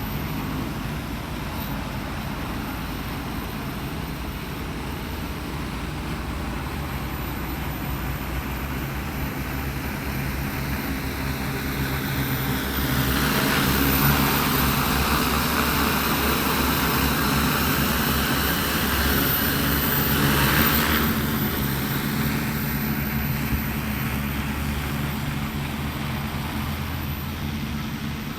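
A 15-litre agricultural spraying drone's rotors humming steadily in flight. About halfway through the sound swells into a louder rushing drone for roughly eight seconds as the aircraft passes close, then falls away again.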